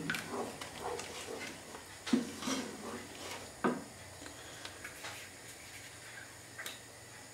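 A spatula stirring and scraping through onions and beef stock in a metal pan, with two sharper knocks on the pan about two seconds in and just under four seconds in. After that come only light clicks of handling.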